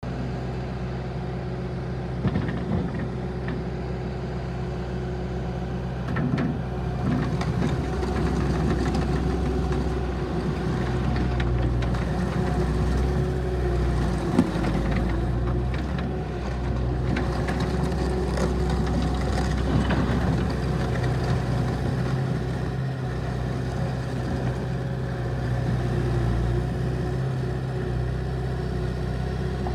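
Bobcat T770 skid steer loader's diesel engine running steadily, its speed rising and falling slightly, with a few sharp knocks.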